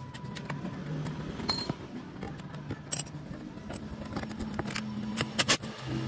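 Scattered metallic clicks and knocks of tools and engine parts being handled during reassembly, a few sharp ones near the middle and end, over a faint low hum.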